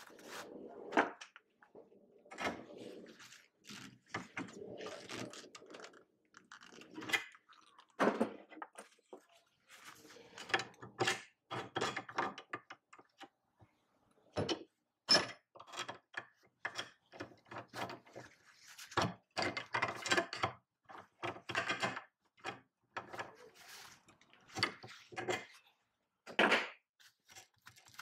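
Irregular metallic clicks, knocks and clanks of hand tools on bolts, as bolts are torqued and then worked loose with small plier wrenches.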